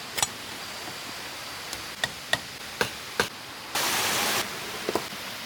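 Several sharp knocks or taps at uneven intervals over a steady hiss, with a short burst of louder hiss about four seconds in.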